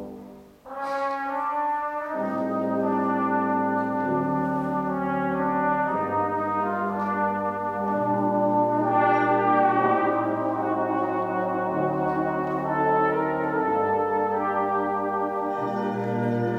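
Brass band playing: sustained chords over low bass notes that change about every two seconds. A brief break about half a second in ends with a sharp attack, and the music brightens near the end.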